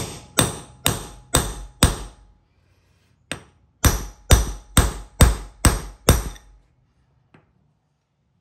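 Hammer blows on a metal setting rod, driving the slug down inside a drop-in concrete anchor so that the anchor expands and locks into the floor. A run of five blows at about two a second, a single blow, then six more at the same pace, stopping about two-thirds of the way through.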